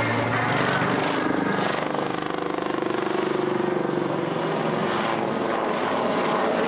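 Military helicopter, a Westland Lynx, flying an aerobatic display: steady rotor and turbine noise with a fast rhythmic rotor thump that is clearest a couple of seconds in.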